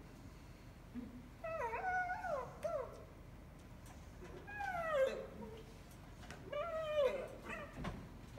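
High-pitched whining cries in three spells: a run of short wavering wails, then one long falling whine about halfway through, then a few more short falling cries near the end.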